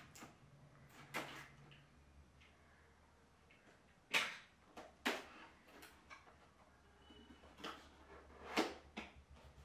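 Cardboard Nikon Z9 camera box being unsealed and handled: a handful of short cardboard and paper scrapes and rustles, the loudest about four, five and eight and a half seconds in.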